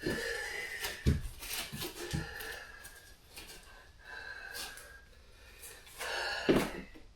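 A man breathing hard from heavy work, in long hissy breaths, with a few dull knocks about a second in, about two seconds in and again near the end.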